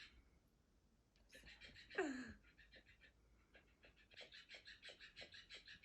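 Cockapoo puppy panting quickly in short, even breaths, about four to five a second, with a pause near the start. About two seconds in comes one short, sharp squeal that glides steeply down in pitch, the loudest sound here.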